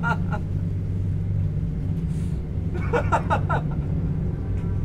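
A steady low hum, with a person's voice heard briefly about three seconds in.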